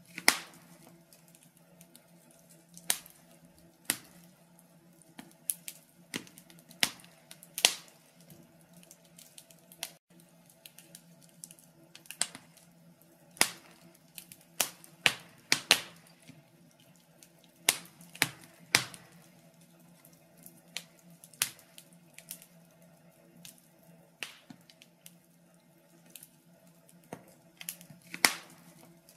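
Wood fire crackling in a stove: irregular sharp pops and snaps, about one a second, over a steady low hum.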